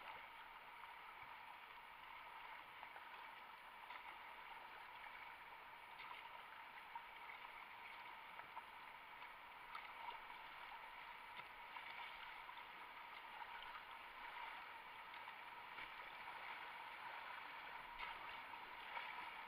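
Faint, steady rush of river water around a whitewater kayak running down the river.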